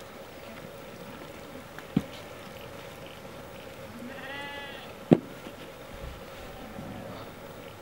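Wether lambs in a yard: one lamb bleats once about halfway through, a short call that rises and falls. Two sharp knocks come about three seconds apart, the second the loudest.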